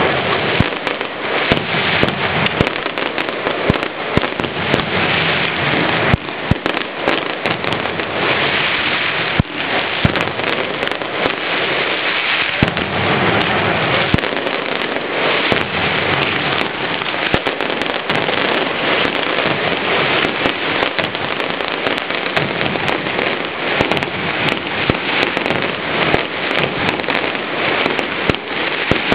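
Mascletà firecrackers going off in a dense, unbroken rattle of rapid sharp bangs and crackles, with no pause.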